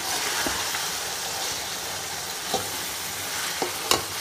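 Raw chicken pieces sizzling in hot oil in a pan, stirred with a slotted metal spatula that knocks against the pan a few times, the sharpest knock near the end.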